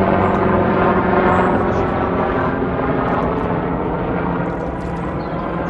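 Helicopter flying overhead, a steady rotor and engine drone that slowly fades as it draws away.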